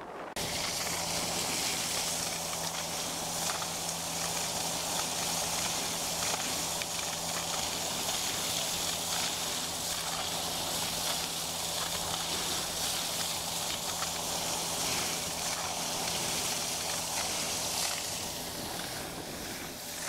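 Outboard motor running at a steady speed as an inflatable boat moves over calm water, with the rush of water along the hull and wind on the microphone.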